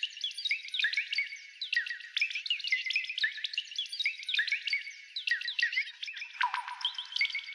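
Anime sound effect for Nami's Clima-Tact weapon from One Piece. It is a dense, unbroken stream of short, high, whistling chirps that glide up and down in pitch. The stream dips lower in pitch briefly near the end.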